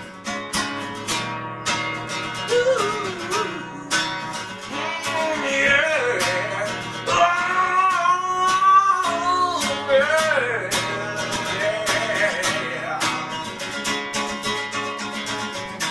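Music: an acoustic guitar strummed steadily, with a voice singing a melody over it through the middle of the passage.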